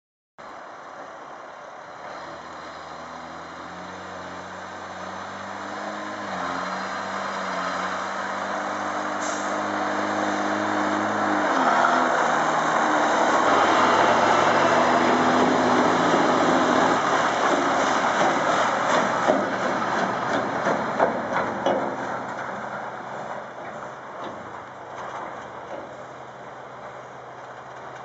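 Volvo articulated dump truck's diesel engine running as the hauler drives past. The sound grows louder to a peak midway and then fades, and the engine note shifts pitch in steps a few times. A run of clanks and rattles comes as it passes.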